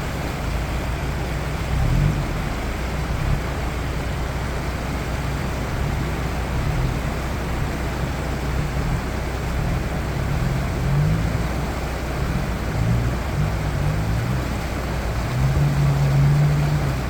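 Toyota Land Cruiser 71's engine running while driving off-road, a steady low rumble whose pitch shifts up and down with the throttle, held highest for a moment near the end.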